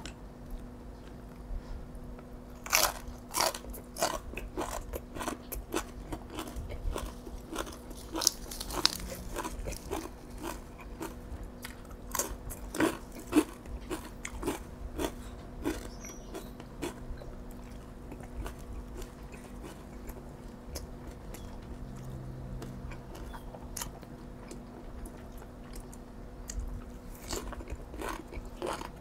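A person biting and chewing crunchy food close to the microphone: sharp crunches come thick and loud in the first half, then sparser, softer chewing.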